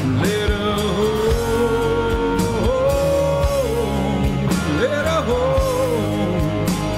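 Rock band playing an instrumental passage: a lead guitar holds and bends single notes over bass and drums.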